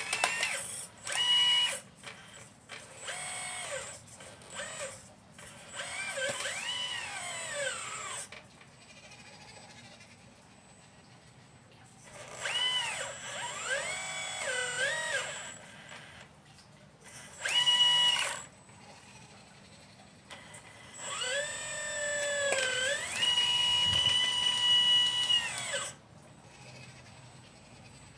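1/12 scale RC Liebherr 954 excavator's motors whining in repeated bursts as its functions are worked, the pitch sliding up and down within each burst. The longest burst, near the end, lasts about five seconds and dips before holding a steady pitch.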